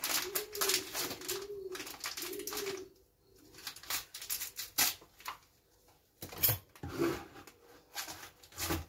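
Scissors snipping and crackling through a plastic sachet of soap concentrate, in sharp irregular clicks and crinkles that are loudest about five seconds in, at six and a half, and near the end. A pigeon coos four times in a row during the first three seconds.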